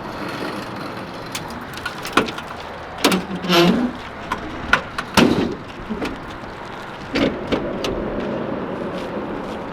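A vehicle running steadily, with a series of sharp knocks and clatters over it.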